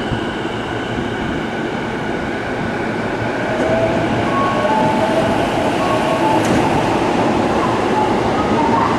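Electric commuter train moving along the platform: steady rolling noise, with the traction motors' whine coming in about three and a half seconds in and stepping up in pitch as it grows louder.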